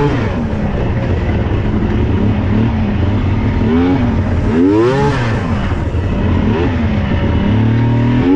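Yamaha SX700R snowmobile's three-cylinder two-stroke engine running hard under throttle, its revs rising and falling, with sharp climbs in pitch about four and five seconds in and again near the end.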